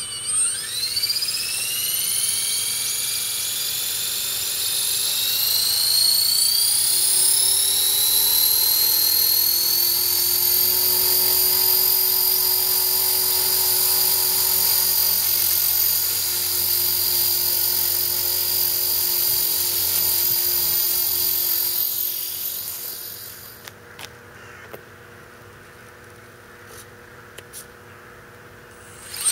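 Electric EXI 450 Pro RC helicopter spooling up: a high-pitched whine from its motor, gears and rotor rising in pitch over the first few seconds, then running steady. It cuts off suddenly about three-quarters of the way through, leaving only a few faint clicks.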